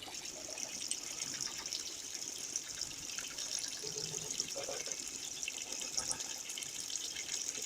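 Water running steadily into the wash tub of an LG twin-tub washing machine as it fills.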